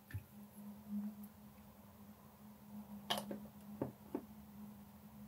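Faint clicks and taps from small plastic model parts and a small bottle being handled: one near the start, then a quick cluster of four about three to four seconds in, over a steady low hum.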